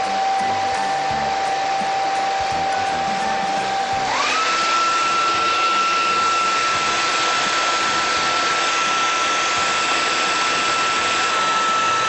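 Handheld hair dryer running, a steady motor whine over the rush of blown air. About four seconds in, the whine steps up in pitch as the motor speeds up, and the air gets a little louder.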